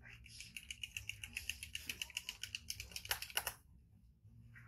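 Rapid, even clicking from a plastic milk bottle being worked in the hands, about ten clicks a second, with a louder rustle just before the clicking stops about three and a half seconds in.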